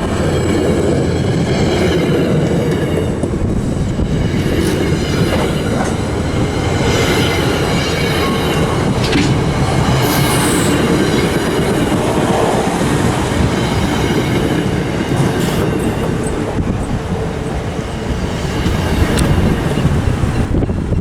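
Commuter rail train passing close by, a steady loud rumble with wheels clattering over rail joints and faint high wheel squeal.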